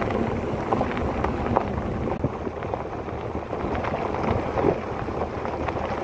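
A vehicle driving on a gravel road: steady engine and tyre noise with many small knocks and rattles, and wind on the microphone.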